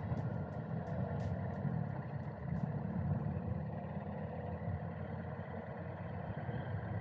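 Motorcycle running at riding speed: a steady low rumble of engine and wind noise.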